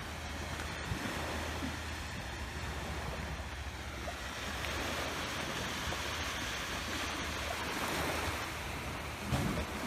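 Small sea waves washing against a rocky shore, with wind rumbling on the microphone.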